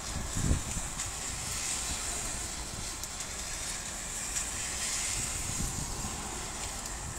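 Heavy rain pouring steadily, a dense even hiss, with a low thump about half a second in. A car's tyres swish through the water on the wet road near the end.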